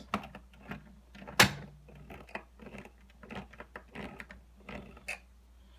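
Irregular clicks and ticks from a 3D Systems Cube 3 filament cartridge's feed gear being turned by hand with a small screwdriver, with one louder click about a second and a half in. The gear is being worked to manually advance jammed filament through the feed tube.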